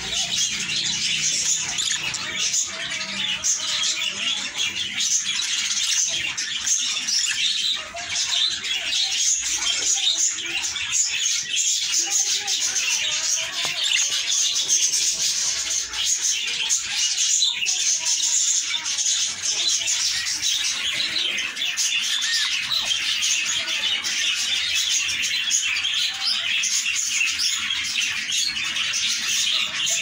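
Budgerigars chattering and warbling without a break, a dense mix of high chirps and squawks.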